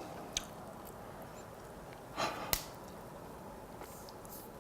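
Quiet pause in eating: a short, noisy breath through the nose about two seconds in, followed at once by a sharp click, with a fainter click near the start.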